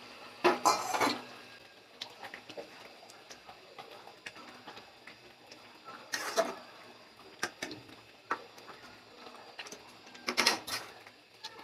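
Metal spatula stirring chicken curry with potatoes in a wide pan, scraping and clicking against the pan, with louder scrapes about half a second in, around six seconds and near ten seconds.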